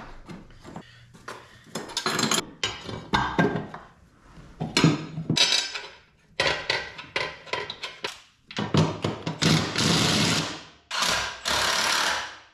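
Workshop tool work on steel parts: a run of sharp metal knocks and clanks, then two longer stretches of steady, hissing noise near the end.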